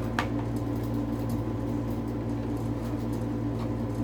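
A steady low electrical hum from a running appliance, with one short click about a fifth of a second in.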